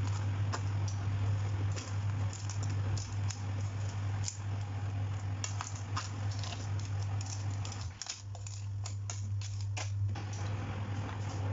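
Metal kitchen tongs clicking and scraping against a wok and crab shells as whole crabs and corn are turned in the pan, a steady low hum running underneath.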